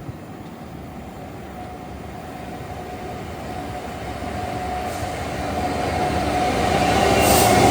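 A train approaching, its running noise growing steadily louder. A steady tone joins it about halfway through and strengthens toward the end.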